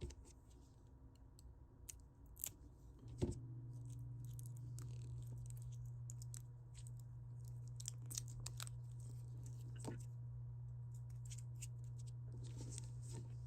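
Faint clicks and crinkles of a charging cable and its metal connectors being handled, over a steady low hum that starts about three seconds in.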